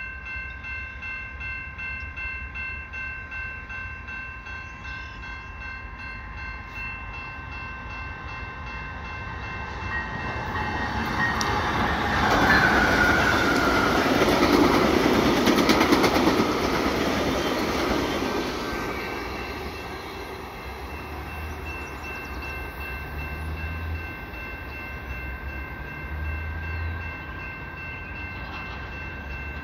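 Via Rail Siemens Venture passenger trainset passing. Its rushing rumble builds over a few seconds, is loudest for about six seconds and fades as it goes away, while level-crossing bells ring steadily throughout.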